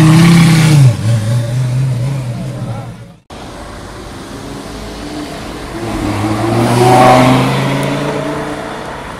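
A supercar engine held at high revs drops in pitch about a second in and fades as the car pulls away, until a sudden cut. Then the V10 of a Lamborghini Gallardo Spyder accelerates past, rising to a peak near the seven-second mark and fading as the car drives off.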